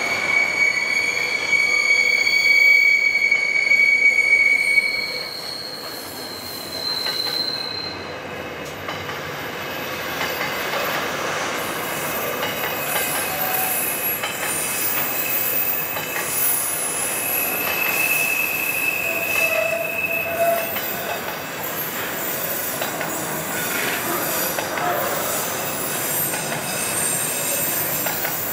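Container wagons of a double-stacked freight train rolling past, their steel wheels running on the rails with high, drawn-out squeals. The squealing is loudest for the first five seconds, then eases to fainter squeals over the steady rolling noise.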